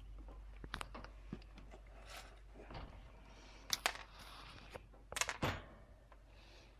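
Quiet, close clicks and crunches of a tuxedo cat chewing a hand-fed treat, with a few sharper knocks, a pair about four seconds in and a cluster just after five seconds.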